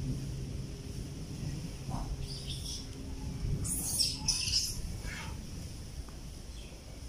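A few short, high-pitched chirps, around two and a half and four seconds in, over a low outdoor rumble, with a steady low hum fading out partway through.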